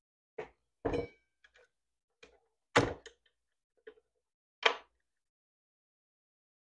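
Handling knocks and clicks from a Bauer compact circular saw during a blade change, about six separate knocks over the first five seconds. One about a second in has a short metallic ring.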